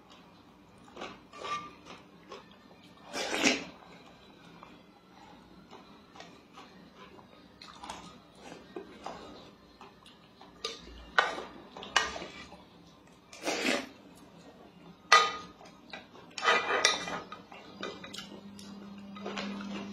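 A spoon scraping and knocking against the inside of a metal rice-cooker inner pot as porridge is scooped out, at irregular intervals with a handful of sharper knocks, some with a short ring.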